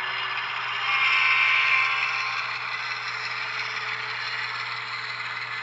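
HO scale model freight train, led by a CSX ES44AC model locomotive, running along the track: a steady rattle and whir of wheels on rail and the model's motor. It gets louder from about one to two seconds in as the locomotive passes close.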